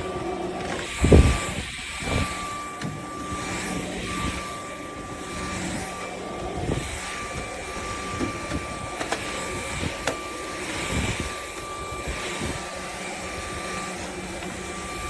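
Proscenic P11 Lite cordless stick vacuum running steadily, a constant motor whine over airflow noise, with a low thump about a second in.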